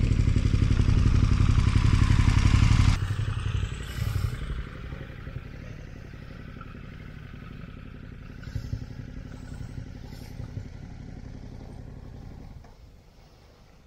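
Motorcycle engine running loudly with a rapid firing pulse, then dropping suddenly about three seconds in to a lower rumble that fades further near the end.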